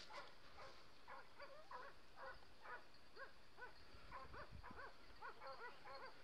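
Hunting dogs yelping faintly, a steady run of short, high barks at about three a second.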